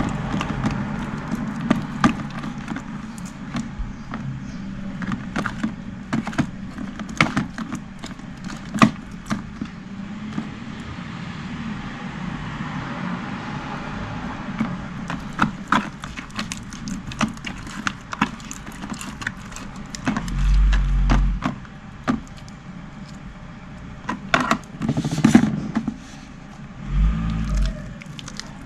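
Slime being squeezed and worked by hand, giving irregular sticky clicks and pops over a steady low hum, with two heavier low bumps of handling about two-thirds of the way through and near the end.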